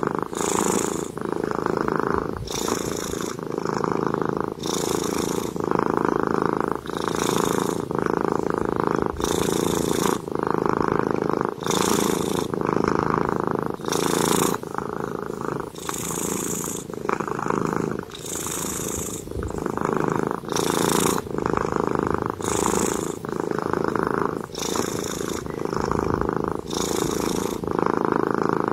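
A cat purring steadily, the rumble rising and easing with each breath in and out, about one breath every two seconds.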